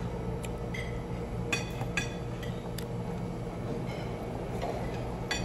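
Cutlery and dishes clinking during a meal: a handful of light, ringing clinks at irregular intervals, over a steady background hum.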